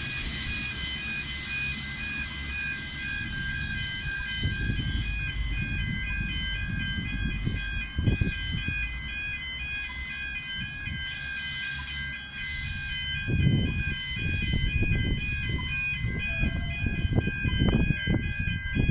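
Level crossing warning bells ringing: a rapid, evenly repeating electronic ding that keeps going, over a low rumble that grows stronger in the last few seconds.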